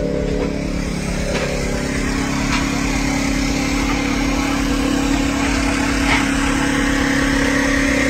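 Portable generator engine running at a steady speed, a constant hum that does not change in pitch.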